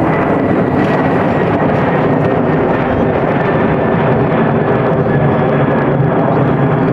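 Boeing 747 jet engines, a loud, steady rushing roar with a faint whine that slowly falls in pitch as the airliner passes.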